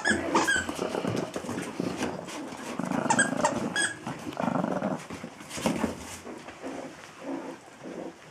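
Biewer and Golddust Yorkshire terrier puppies play-fighting: a few short, high-pitched yips and squeaks over low growling and scuffling.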